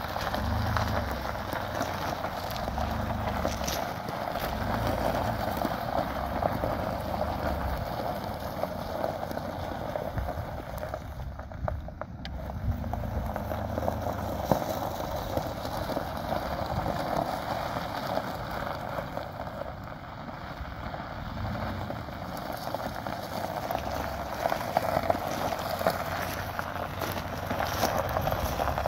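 Wind buffeting the microphone outdoors: a steady rushing noise with irregular low gusts that swell and fade every second or two.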